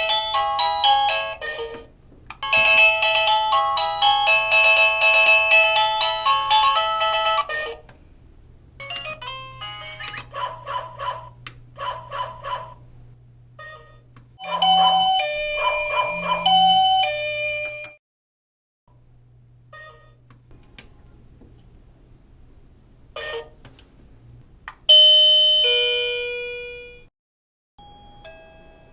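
Wireless doorbell receiver playing a run of its electronic chime tunes one after another, short melodies of clean, steady notes with brief pauses between them. Near the end comes a two-note ding-dong that rings out and fades over about two seconds.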